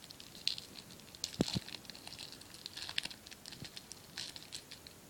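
Foil trading-card booster pack crinkling as it is torn open and handled, a run of irregular crackles with a couple of soft thumps about a second and a half in.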